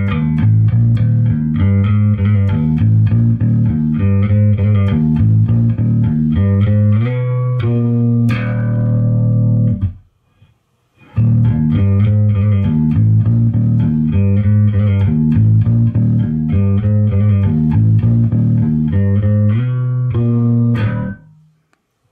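Electric Gibson SG bass played on its treble (bridge) pickup alone with the tone control all the way up: a busy, repeating riff of plucked notes. The first pass ends on a held note that dies away about ten seconds in, a brief pause follows, then the riff is played again and stops shortly before the end.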